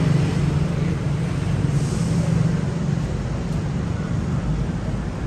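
City road traffic: a vehicle engine running steadily close by over the noise of passing traffic, with a short hiss about two seconds in.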